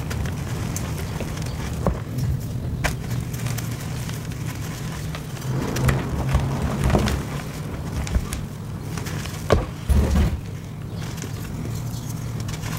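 Sped-up hands crushing and crumbling soft chalk blocks into powder: scattered crisp crunches and snaps, with a few louder breaks about six and ten seconds in. A steady low hum runs underneath.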